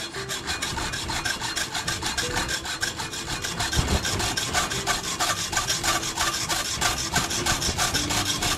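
Hacksaw cutting through a silicone bronze carriage bolt clamped in a bench vise, in quick, even back-and-forth strokes of metal rasping on metal.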